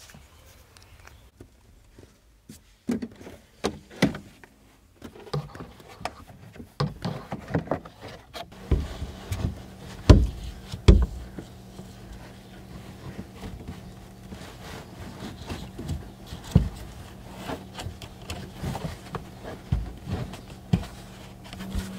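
Handling noise from a 12-inch Image Dynamics IDQ12 subwoofer being lifted and set into the cut-out of a carpeted rear deck shelf: scattered knocks, taps and rustling, the two loudest about ten and eleven seconds in. A steady low hum comes in after about eight seconds.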